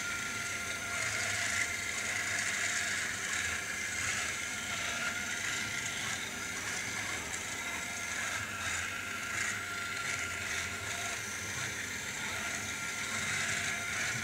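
Thymio II educational robot's small geared wheel motors whirring steadily as it drives along a line-following track.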